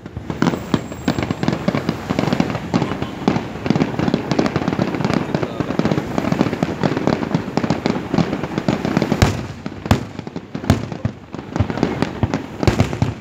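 Fireworks going off: a dense, continuous crackle of rapid pops, with a few louder single bangs standing out about nine to eleven seconds in.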